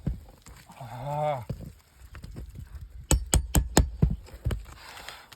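Hammer blows on a roof nail claw, driving it under shingle nails to pull them: four quick strikes about three seconds in, then two lighter ones. A short grunt about a second in.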